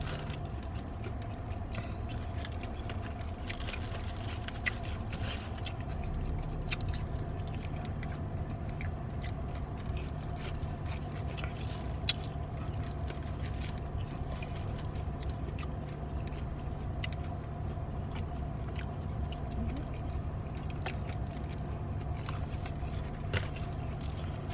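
Close-up chewing and biting of fried chicken, with many small crunches and mouth clicks scattered throughout. Under it runs a steady low hum inside the car's cabin.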